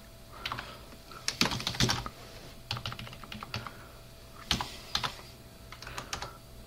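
Typing on a computer keyboard: quick irregular bursts of keystrokes with short pauses between them, over a faint steady hum.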